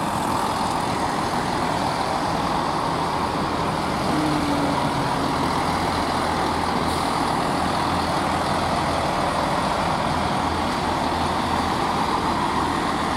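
Chiltern Railways Class 165 diesel multiple unit drawing into the station: a steady mix of diesel engine and wheel-on-rail noise as the carriages roll past, with a brief tone about four seconds in.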